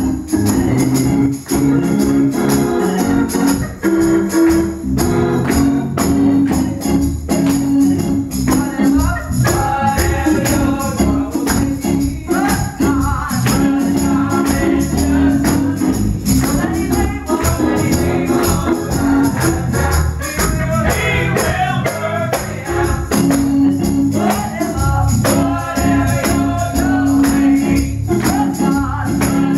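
Live gospel music: an organ holding sustained chords under voices singing, with a steady percussive beat.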